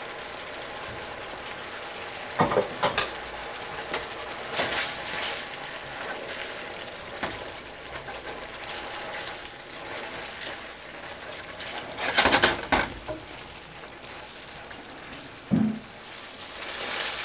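Spaghetti simmering in white wine and lemon juice in a nonstick skillet, a steady low sizzle as the wine cooks down to drive off its alcohol. Silicone-tipped tongs click and knock against the pan as the pasta is tossed, loudest about twelve seconds in.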